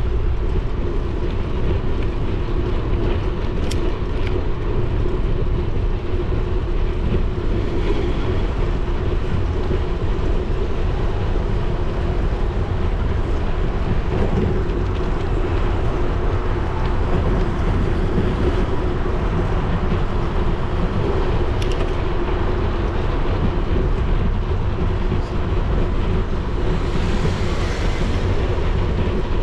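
Steady wind rush and tyre rolling noise from a moving bicycle, picked up by a bike-mounted action camera, with deep rumble from wind on the microphone and a constant low hum. A brief hiss rises near the end.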